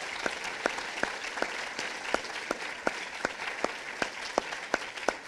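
Audience applauding, with one clapper close by clapping steadily and loudly, a little under three claps a second, above the rest of the crowd.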